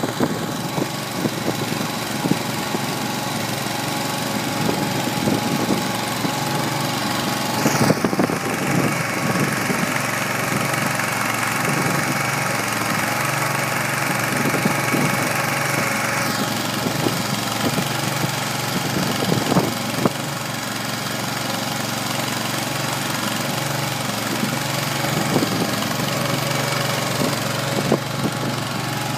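Kohler 25 hp gas engine running steadily, driving a small 25-cubic-foot feed mixer that tumbles chopped hay, with a few sharp knocks from the mixer.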